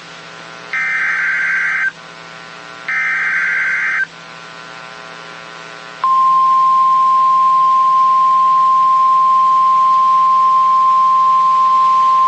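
NOAA Weather Radio alert for a severe thunderstorm warning: two bursts of the EAS SAME digital header, each about a second long, then about six seconds in the steady single-pitch 1050 Hz warning alarm tone starts and holds.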